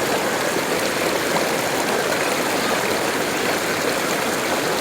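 Waterfall water flowing strongly: a steady, even rush of water with no breaks.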